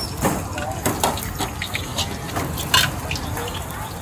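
Liquid pouring and splashing into a hot wok, with a few sharp metal clinks from a steel spatula, over background voices.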